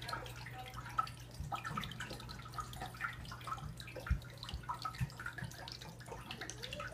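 Aquarium water trickling and dripping, a busy patter of small splashes, over a steady low hum from the tank's equipment, with a couple of louder knocks.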